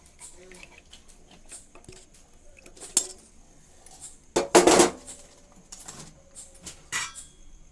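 Kitchen utensils clinking and clattering while a hot decoction is strained into a tea glass. There is a sharp clink about three seconds in, a louder clatter lasting about half a second around the middle, and another ringing clink near the end.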